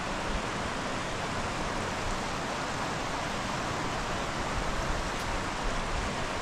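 Waterfall on a river rushing steadily, an even hiss of falling water.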